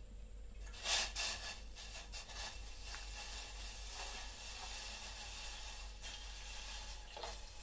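Milk pouring from a cut plastic milk packet into a lightly heated steel pot: a steady splashing hiss that starts about a second in, with a couple of louder splashes as the stream first hits.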